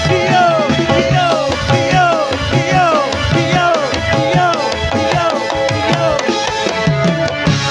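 Live instrumental music with a steady drum beat and a falling melodic phrase repeated about twice a second. Near the end the drumming stops and held sustained notes take over.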